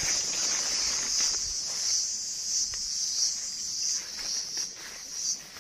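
Steady high-pitched chorus of insects trilling in a tropical garden, pulsing slightly, with a few faint rustles.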